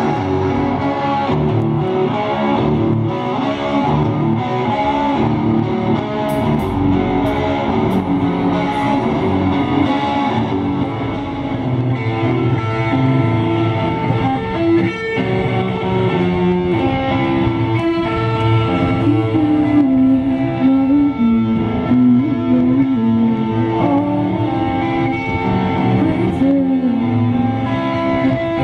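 Live rock band playing: electric guitars over bass guitar and drums.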